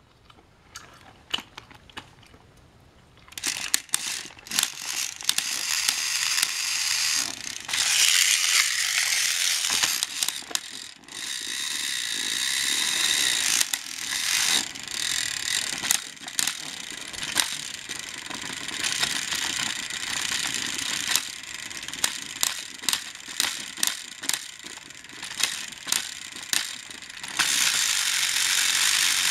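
Two battery-powered TrackMaster toy engines straining against each other in a tug of war, their motors and plastic gearboxes whirring and grinding with many sharp clicks as the wheels slip on the plastic track. Late on the clicks come about twice a second; near the end one engine tips onto its side and its motor runs on steadily and louder.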